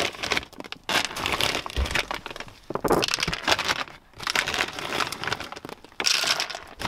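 Dry dog food kibble pouring from a crinkling plastic bag and scattering onto a leather car seat and rubber floor mat, in several bursts of a second or two with short pauses between.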